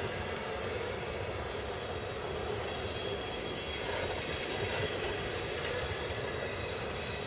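Freight cars rolling past on the rails, a steady rolling noise of steel wheels on track.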